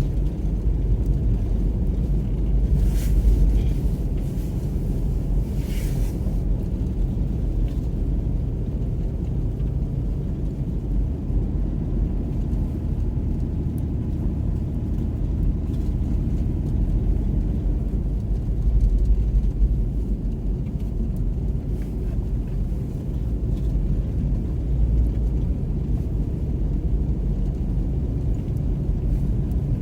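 Steady low rumble of a car driving slowly on a snow-covered road, heard from inside the cabin: engine and tyre noise on untreated snow.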